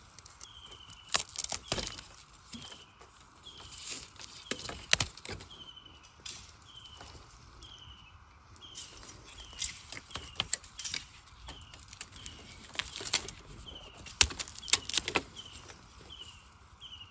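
Dry bamboo leaves and twigs crackling and snapping underfoot in scattered sharp snaps, while a bird repeats a short falling chirp about once a second.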